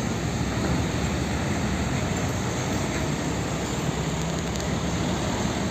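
Steady rush of running water as a muddy toy tanker truck is washed clean.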